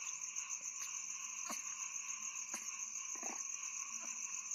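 Steady, high-pitched chorus of night insects, continuous throughout, with a few faint clicks and a brief low rustle about three seconds in.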